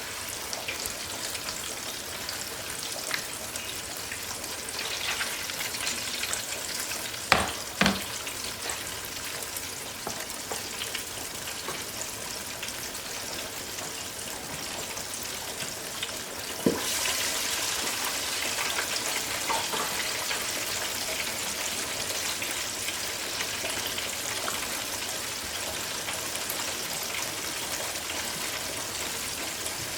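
Chicken frying in hot oil, a steady sizzle. A couple of sharp knocks come about seven seconds in, and another clack comes just past halfway, after which the sizzle grows louder.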